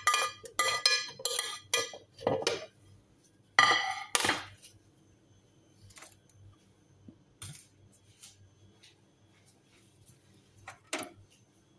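Cut fruit being tipped off a plate into a plastic blender jar: a quick run of ringing clinks, about two a second, for the first couple of seconds, then a louder clatter about four seconds in. After that there are only a few faint knocks, with one more clink near the end.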